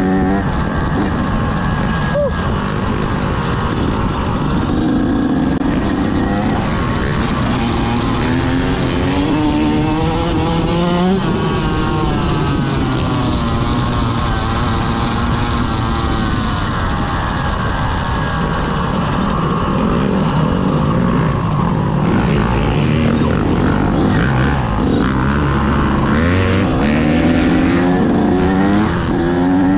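Yamaha YZ125X two-stroke single-cylinder dirt bike engine being ridden, its pitch climbing and dropping again and again as the throttle is worked.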